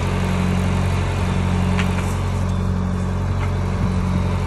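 An engine running steadily at idle, a low, even hum with a drone that swells and fades about once a second.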